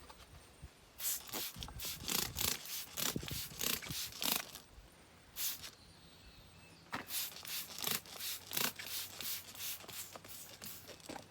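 Trigger spray bottle of glass cleaner squirting in quick hissy pumps, about three a second, in two runs with a pause in the middle. The tire is being soaked to find air leaks by their bubbling.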